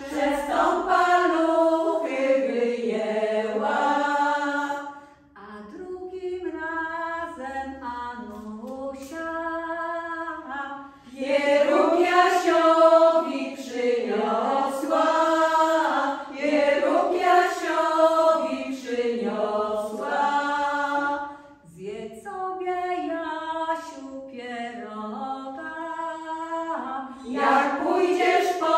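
Women's folk ensemble singing a very old Polish folk song a cappella, with no instruments. Louder full phrases alternate twice with quieter stretches.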